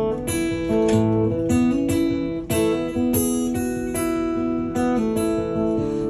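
Acoustic guitar strummed, its chords ringing, with no singing.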